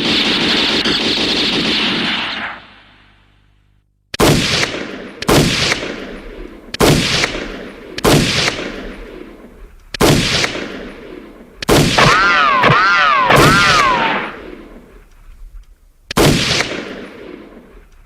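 Film gunfire sound effects: a continuous burst of machine-gun fire that dies away after about two and a half seconds, then about seven single gunshots a second or two apart, each with a long echoing tail. One shot near the middle is followed by a wavering whine lasting about two seconds.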